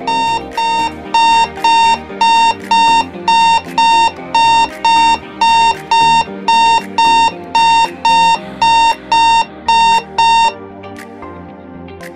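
Speed-gate turnstile's alarm buzzer beeping, one steady high beep about twice a second, after its swing barrier has been forced open; the beeping stops about ten and a half seconds in.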